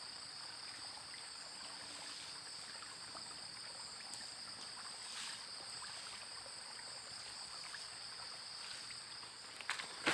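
Faint, steady trickle of running water, with a continuous high-pitched drone of insects above it.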